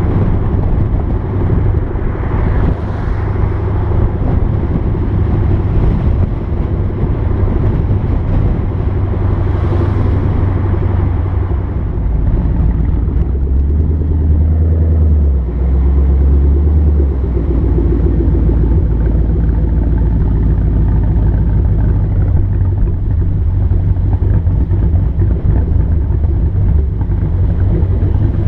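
2014 Mustang GT's 5.0 V8 running through Roush axle-back mufflers with the resonators deleted, a steady exhaust note that changes pitch about halfway through.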